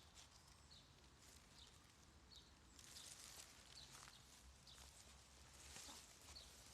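Near silence: faint outdoor background with a low steady hum and a series of faint, short, high chirps.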